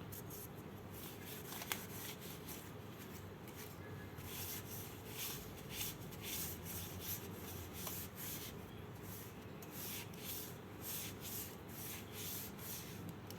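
Rubbing strokes on a humidifier part as it is wiped clean by hand. The strokes are faint and come at about two a second from about four seconds in.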